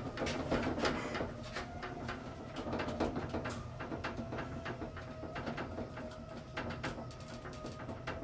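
1975 KONE inclined traction elevator running, with a steady hum and a whine under many irregular clicks and rattles.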